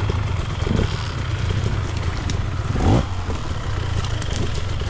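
Stark Varg electric dirt bike being ridden over rough frozen ground: a steady low rumble of tyres and wind, with scattered clatter from the chassis, and a quick rising whine about three seconds in.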